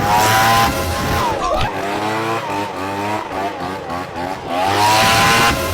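Vacuum cleaner motor whining, run up twice: each time the high whine rises, holds for about a second and then falls away as it winds down.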